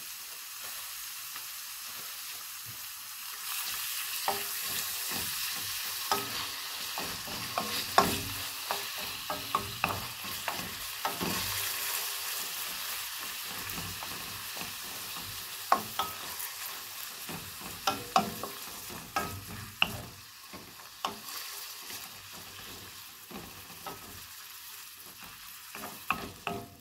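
Diced chicken frying in hot oil in a metal wok, sizzling steadily while a wooden spoon stirs it, knocking and scraping against the pan. The sizzle grows louder a few seconds in and eases slowly toward the end.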